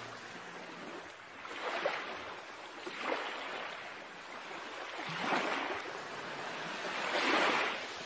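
Seawater washing in and out of a rocky tide pool, four surges of splashing water each swelling and ebbing away.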